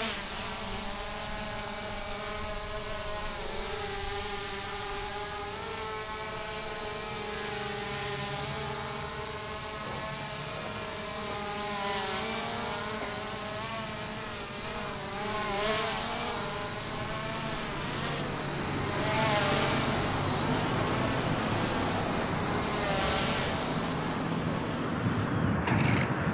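Small quadcopter drone's motors and propellers spinning up and running while it sits on the ground: a buzzing whine made of several pitches that waver up and down as the throttle changes. From about twelve seconds in, swells of rushing air noise come and go over it.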